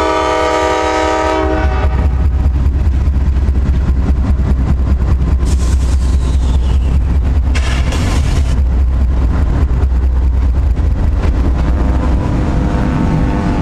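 Three Norfolk Southern GE C44-9W diesel locomotives passing close: the lead unit's Nathan K5LA horn ends about two seconds in, then the heavy, steady rumble of the diesels going by, which eases near the end.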